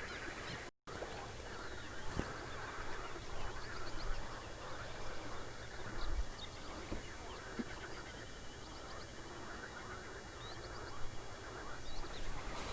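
Birds calling around a lake, many short scattered chirps over a steady outdoor hiss. The sound cuts out completely for a moment under a second in.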